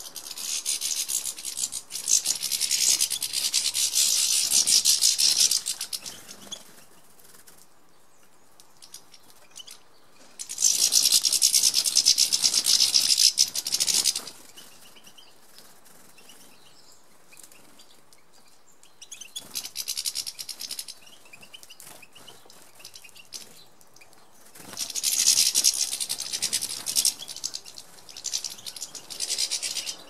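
European goldfinches twittering in long, rapid, high-pitched bursts, four times, each lasting a few seconds, with quieter gaps between.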